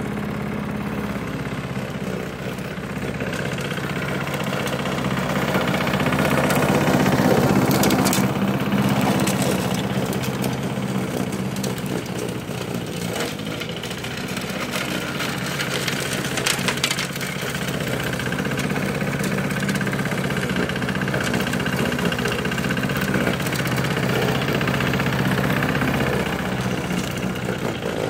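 Small petrol lawn mower engine running steadily as the mower drives across the grass, growing louder about six to eight seconds in and then easing off again.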